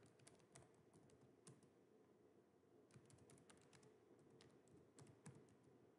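Faint computer keyboard typing: quick runs of keystrokes, with a pause of about a second near the middle.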